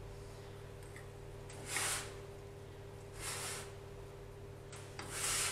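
Egg-white, flour and almond biscuit mixture being folded by hand in a glass bowl: three brief soft swishing strokes, about a second and a half to two seconds apart.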